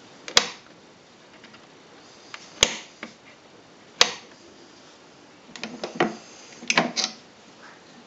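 Sharp plastic clicks from a Bosch Tassimo T40 pod coffee machine being handled: three single clicks spread over the first four seconds, then two quick clusters of clicks and rattles about six and seven seconds in, as the brewing-head lid is opened.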